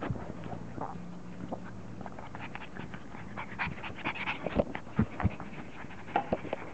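English bulldog puppies panting and snuffling close to the microphone, with irregular short clicks and knocks as a puppy noses right up against the camera. The clicks come thickest from about four seconds in.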